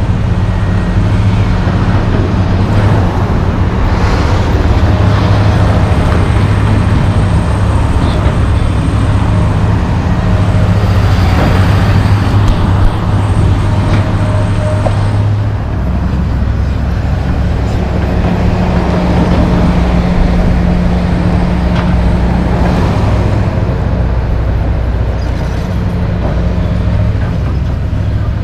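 John Deere 470G excavator's diesel engine running hard under load while its bucket scrapes and drags soil. The engine note steps down to a lower pitch about halfway through.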